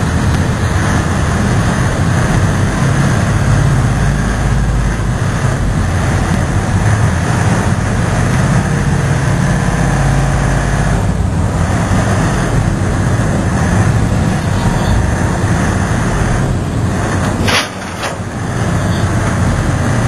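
Landing craft's diesel engines running steadily under way. Near the end the noise dips briefly with a sharp click.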